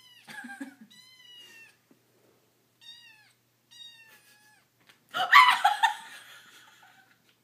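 A young kitten meowing about four times in short, high-pitched calls that fall in pitch, then a louder, noisy burst lasting about a second, about five seconds in.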